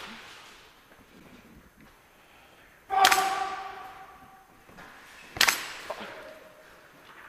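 Two sharp bangs about two and a half seconds apart, each echoing away in a large hall. The first, about three seconds in, is the louder and has a brief metallic ring.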